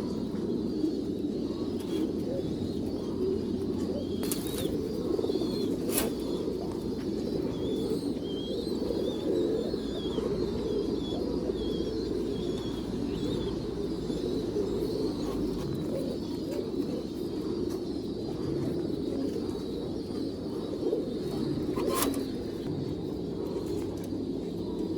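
A flock of domestic pigeons cooing together in a loft, a dense, continuous chorus, with a few sharp clicks.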